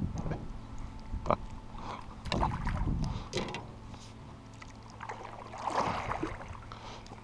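Canoe paddle strokes through the water beside an aluminum canoe: irregular splashing and dripping, with a few sharp knocks.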